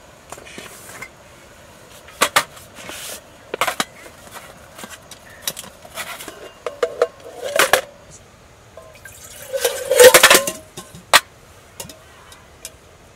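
Metal camp pots and a mess tin clanking and clinking as they are lifted out of a storage box and set down on a wooden table: scattered knocks, with the loudest clatter and a brief ringing note about ten seconds in.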